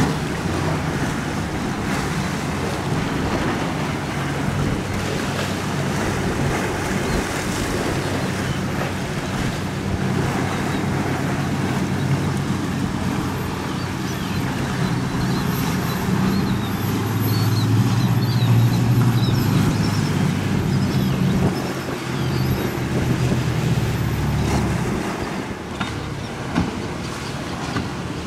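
A center console boat's engines running past at speed, the engine drone building to its loudest a little past the middle and then dropping away near the end, over wind and surf noise.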